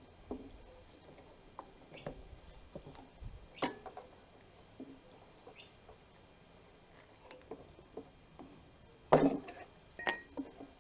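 Pliers and small metal parts clicking and tapping against a lawnmower engine's plastic carburetor and fittings as the fuel hose is worked off, in sparse separate clicks, with a louder clatter about nine seconds in and a sharp ringing metallic click shortly after.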